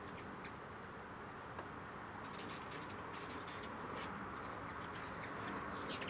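Steady high-pitched insect trilling, with two brief high chirps from hummingbirds a little past the middle and a few faint ticks near the end.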